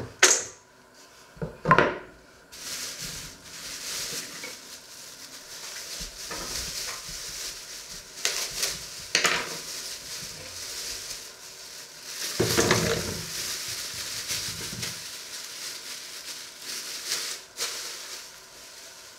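Plum stones knocked off a wooden cutting board into a stainless-steel colander, two sharp clatters in the first two seconds. Then a plastic bag rustles for most of the rest as plums are tipped out into the colander, with a heavier tumble of fruit into the metal bowl about two-thirds of the way through.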